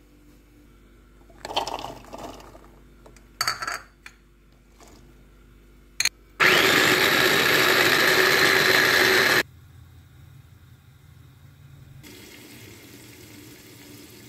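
Knocks and clatter of a small chopper jar being handled, then an electric food chopper's motor and blades run for about three seconds, chopping vegetables, and stop abruptly.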